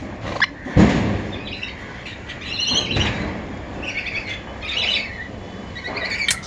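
Orange-winged Amazon parrots calling in short bursts of chirps every second or so, with two dull thumps, the first about a second in and the loudest.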